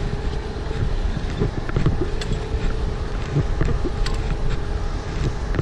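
Wind buffeting a chest-mounted GoPro's microphone high on a 100 ft aerial ladder, over a steady hum. Scattered light knocks and clicks come from boots and hands on the metal ladder during the climb.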